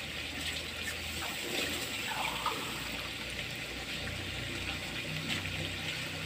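Pork pieces sizzling and bubbling in adobo sauce in a wok: a steady simmer with faint crackles.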